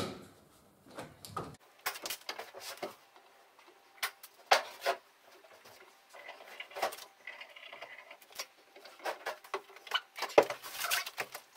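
Irregular wooden knocks, taps and scrapes as a timber newel post and handrail section are handled and carried.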